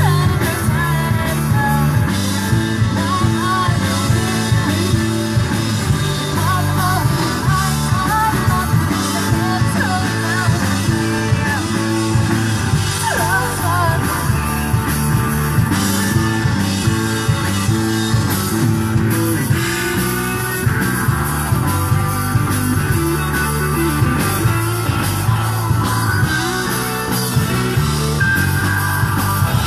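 Rock band playing live at a sound check: electric guitar and a steady beat, with a singer's voice through much of the first half.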